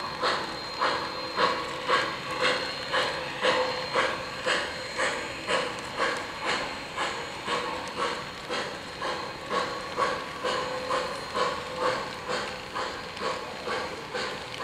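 O-gauge model steam train running on three-rail track, with a steady, even beat of about two pulses a second.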